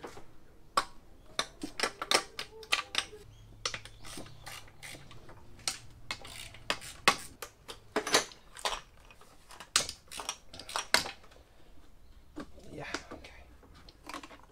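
Hand tools and metal fittings clicking and clinking irregularly in a car's engine bay as the throttle cable is worked loose from the throttle body.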